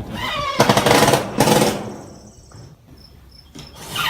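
Cordless screw gun or impact driver whining up and then driving roofing screws through metal roofing, in two loud rattling bursts about a second in.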